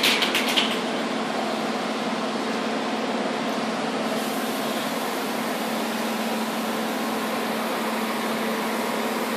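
A steady mechanical hum from a running motor or fan, with a constant low tone. A few short clicks sound right at the start.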